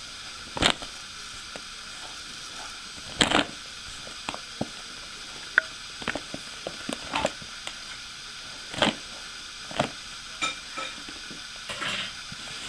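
Stiff woven plastic shopping bag crinkling and rustling in irregular bursts as a kitten squirms and paws inside it, over a steady hiss.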